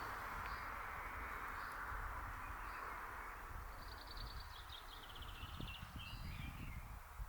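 Birds calling: a few short high notes about a second apart, then a rapid high trill of quick repeated notes in the second half, over low wind rumble.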